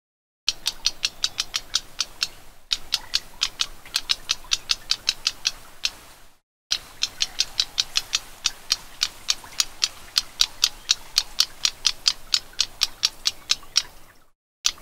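Black-browed reed warbler giving a rapid, even series of dry ticking call notes, about five a second, broken by two short gaps.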